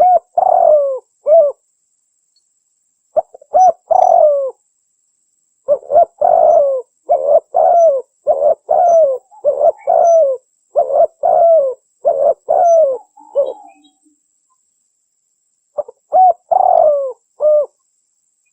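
Spotted dove cooing: a short phrase at the start, then a long run of repeated coos with falling notes, a pause of about two seconds, and another phrase near the end.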